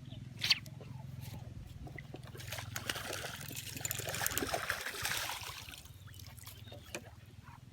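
Water splashing and trickling, building up over a couple of seconds and then fading, with a sharp click about half a second in.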